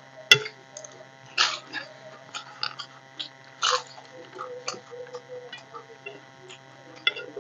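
Crisp fried papad being bitten and chewed, giving a few sharp crunches (the loudest just after the start) and many small crackles between, along with the wet sounds of eating rice by hand.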